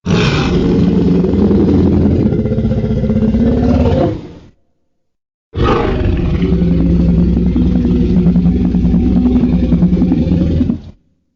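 Two long Godzilla-style monster roar sound effects, each lasting about five seconds, with about a second of silence between them.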